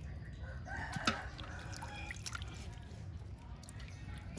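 A rooster crowing about a second in, with further short chicken calls after it, over water dripping and pouring in a pot as dressed chickens are handled. A sharp tap comes during the crow.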